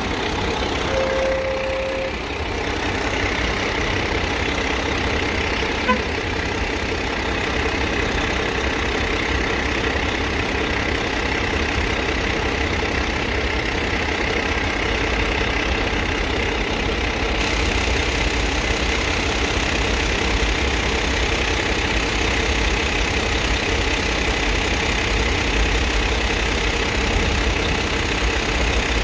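Steady road-traffic noise with vehicle engines running, heaviest in the low end. A short steady beep-like tone comes about a second in, and a single click about six seconds in.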